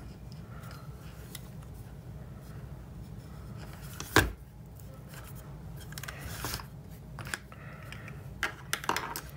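Handling sounds: a screwdriver tapping and scraping against a transformer and its wiring inside a metal case. There is one sharp knock about four seconds in and a few light clicks near the end.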